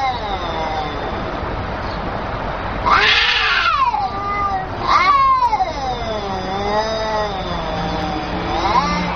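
Two domestic cats caterwauling at each other in an aggressive standoff: long, wavering yowls, with a louder, sharper cry about three seconds in and another rising cry about five seconds in that wavers on for several seconds. A low growl runs under it near the end.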